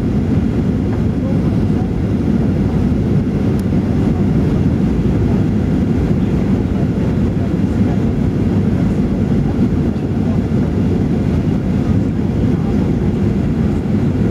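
Steady low rumble inside the cabin of a Boeing 737-800 on final approach: its CFM56-7 engines and the rush of air past the fuselage and wing.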